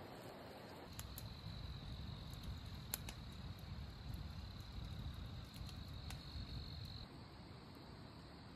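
Cricket trilling at night: one steady high note that starts about a second in and stops near the end, over a low rumble, with a couple of sharp clicks.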